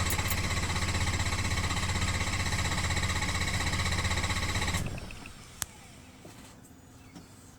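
2016 Ford F350 being cranked over by its starter motor with a steady, fast pulsing and a high whine, failing to start: the truck's recurring intermittent no-start. The cranking stops about five seconds in, followed by a single sharp click.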